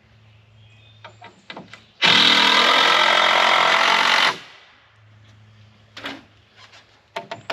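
Power drill running for about two seconds, driving a screw to hold a wooden truss board in place, with a few light knocks of handling before and after.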